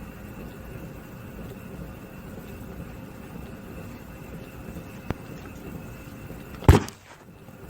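A single heavy punch thudding into a sandbag (punching bag) about a second before the end, over a steady background hiss. A short faint click comes a second and a half earlier.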